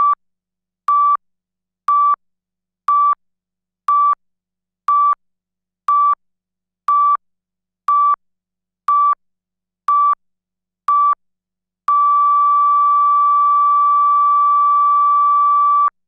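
Patient heart monitor beeping at about one beep a second, twelve short beeps of one pitch, then a steady unbroken flatline tone at the same pitch: the monitor's alarm sign that the heart has stopped.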